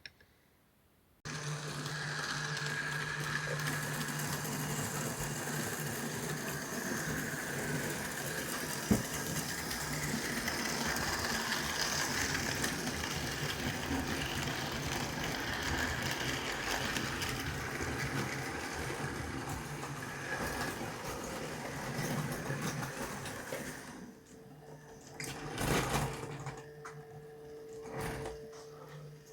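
Model train running on its track: a small electric motor humming steadily with wheel and rail noise. It starts suddenly about a second in and dies down near the end, leaving a few knocks.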